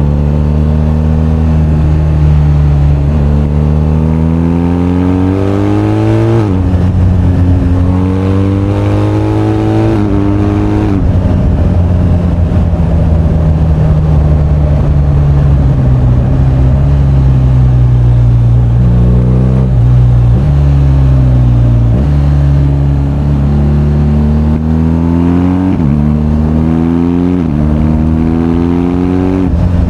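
BMW R1250GS boxer-twin engine pulling hard through the gears: the pitch climbs and drops sharply at each upshift, three times in the first ten seconds. It holds a steadier note for several seconds, then climbs through a quick run of further shifts near the end.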